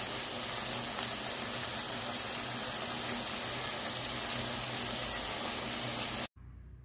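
Duck dinuguan (blood stew) sizzling and simmering in the pan: a steady hiss that cuts off suddenly near the end.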